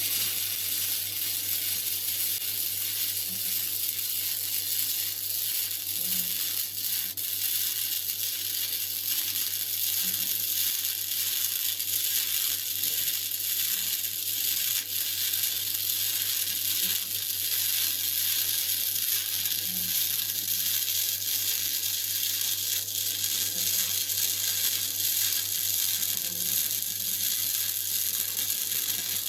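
Gasless flux-core MIG welding arc on a Kaitai welder at 50 amps and 18.3 volts, laying a 3 mm fillet weld: a steady, unbroken sizzling hiss over a low electrical hum.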